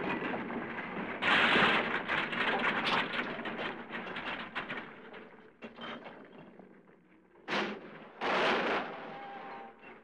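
A car with a nearly dead battery failing to start: irregular clicking and crackling from the starter, with louder noisy bursts about a second in and again near the end.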